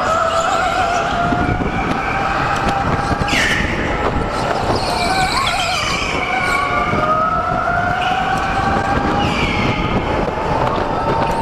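Several electric go-karts racing, their motors whining in pitches that slowly rise and fall as they speed up and slow down, over a steady rushing noise.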